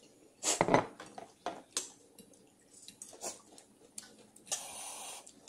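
Sounds of eating at a table: a knock about half a second in, then light clicks of utensils against dishes, and a short steady rush of noise near the end.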